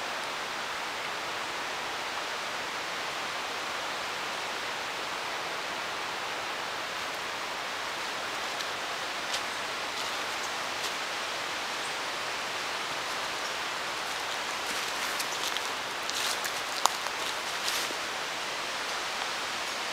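Steady, even hiss of rushing water, with a few short clicks and rustles late on.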